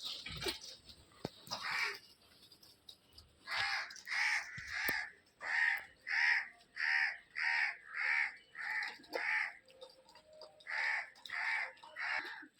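A bird calling: a long series of about thirteen short calls, roughly one every half second or so, with a brief pause about two-thirds of the way through.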